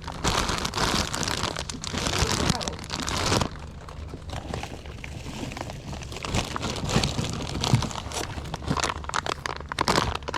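Rustling, crinkling handling noise, loudest for the first three or four seconds, then quieter with scattered clicks.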